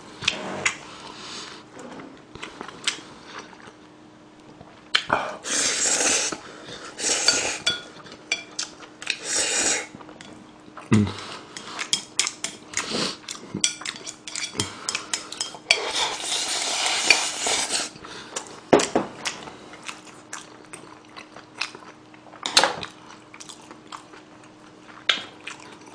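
Chopsticks clicking and scraping against a metal baking tray while black-bean noodles are eaten, with several longer stretches of slurping and chewing between the clicks. A faint steady hum runs underneath.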